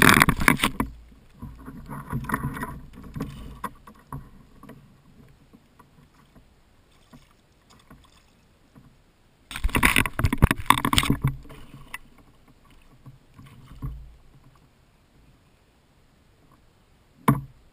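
Water splashing at the side of a kayak as a largemouth bass is landed in a landing net, in two loud spells about ten seconds apart with quieter sloshing between. A single sharp knock near the end.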